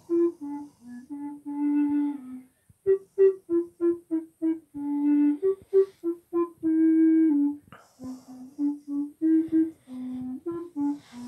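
Bass recorder playing a slow tune of short, separated notes, with a few longer held notes.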